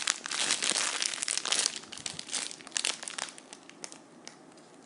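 Crinkling and rustling as a squishy toy is handled, dense and loud at first, then thinning to scattered crackles about three seconds in.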